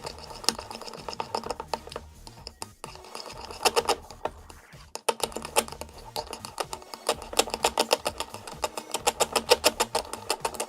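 Spoon stirring a thick mix of glue, shaving foam and lotion in a bowl, knocking against the bowl in quick regular clicks, about four or five a second, with a short lull midway.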